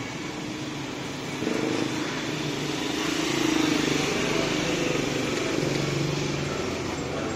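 Small motorcycle engines passing on a narrow street. The engine sound swells as one motorcycle rides close past about halfway through.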